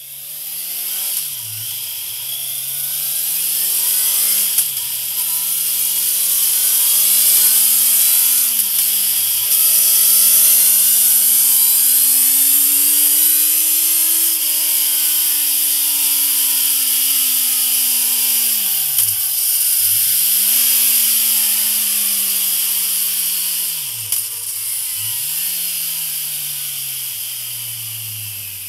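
Kawasaki Z900's 948 cc inline-four running under load on a roller dynamometer, revving up through the gears. The pitch climbs and drops back at three upshifts in the first nine seconds and peaks about halfway. It then falls away, with several downshifts late on, each a quick dip and rise in revs.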